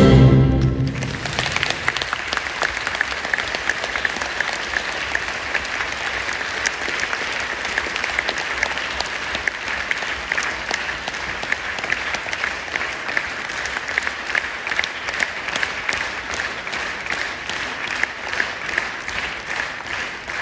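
Theatre audience applauding steadily, easing off slightly near the end. It follows a final orchestral chord that dies away in the first second or so.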